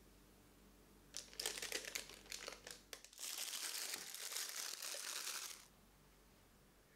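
Crinkling of a piping bag being handled: scattered crackles at first, then a denser continuous crinkle for about two and a half seconds that stops well before the end.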